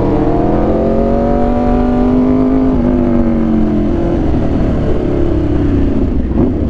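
Aprilia RSV4 1100 Factory's V4 engine through an SC-Project exhaust, running under way: revs climb slightly, then ease off about three seconds in, over steady wind and road rumble.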